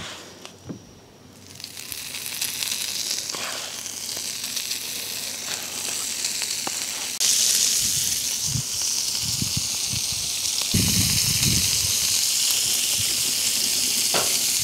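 Diced pork fatback (scrunchions) frying in hot oil on a propane flat-top griddle, a steady sizzle that builds after a quiet first second or so and grows louder about seven seconds in. A few soft low knocks come in between about eight and eleven seconds.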